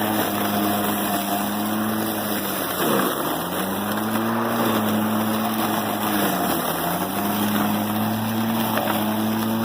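Ego 56-volt battery lawn mower's electric motor and blade running with a steady hum, its pitch sagging twice, about three seconds in and again past six, then recovering as it bites into thick, tall weeds.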